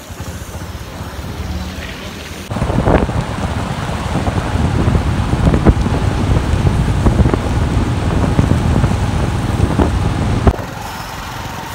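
Wind buffeting the microphone on a moving motorbike: loud, rumbling noise with scattered knocks. It starts abruptly about two and a half seconds in and cuts off about a second before the end, with quieter outdoor noise on either side.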